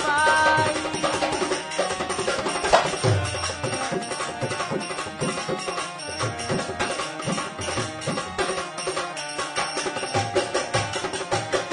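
Instrumental passage of a Bundeli folk song: drums and hand percussion play a brisk, steady rhythm. A wavering held melodic note fades out just under a second in.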